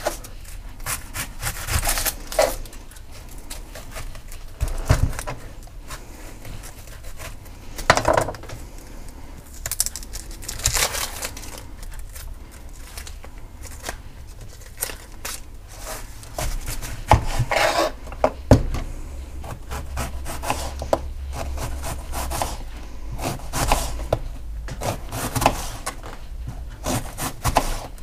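Kitchen knife and hands peeling an onion on a plastic cutting board: irregular taps and scrapes of the blade on the board and dry rustles of papery onion skin being pulled off.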